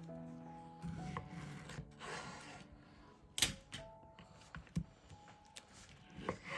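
Soft background music with kitchen handling sounds: a stretch of scraping, then a sharp knock about three and a half seconds in and lighter taps later on.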